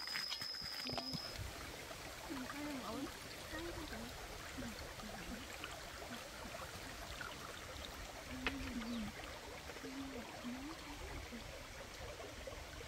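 Steady rushing hiss of a forest stream, with faint, low voices on and off. A high steady tone stops about a second in, and a single sharp tap comes about eight and a half seconds in.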